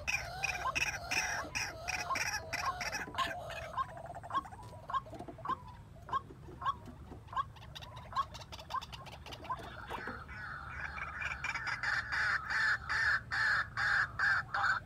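White-breasted waterhen calling: a long run of short, evenly repeated notes, about three every two seconds, with a rapid clicking behind. A steady hiss comes in about two-thirds of the way through.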